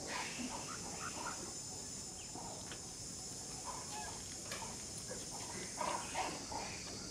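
Outdoor ambience: a steady high-pitched insect drone, with scattered short bird calls and faint distant voices.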